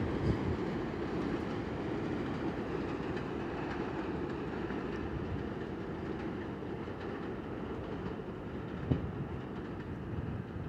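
Elevated New York City Subway train pulling away, its wheels rumbling steadily on the elevated track and slowly fading. A single sharp knock from the track comes about nine seconds in.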